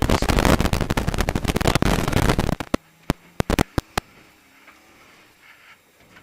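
Loose gravel and stones pelting the underside and wheel arches of a rally car: a dense, loud rattle of hits for about two and a half seconds, then a handful of single stone strikes, the last about four seconds in.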